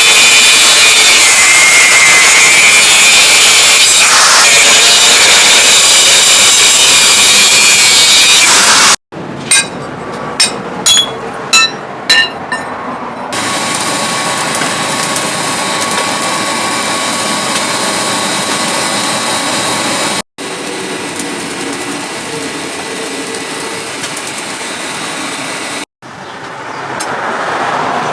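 Power tool working steel, very loud with a steady high whine, typical of an angle grinder cutting metal. After a cut, about six sharp ringing strikes on metal. Then a steadier, quieter grinding noise.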